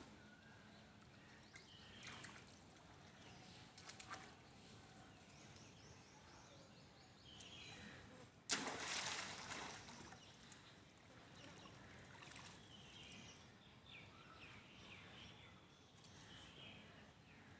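Faint water sloshing as rhesus macaques wade through a shallow muddy pond, with one sudden louder splash a little past halfway that fades out over about a second.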